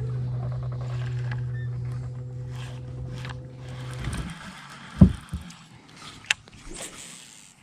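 Electric trolling motor on a fishing boat humming steadily, then switched off about four seconds in. After it comes a loud knock on the boat, then a few light clicks.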